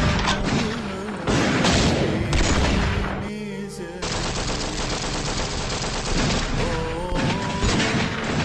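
Battle sound effects: dense rifle and machine-gun fire crackling without pause, with music underneath. The firing thins briefly a little over three seconds in.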